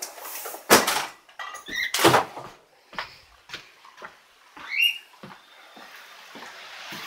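Indoor handling noise: a string of knocks and thumps, with a short squeak about two seconds in and a short rising squeak about five seconds in.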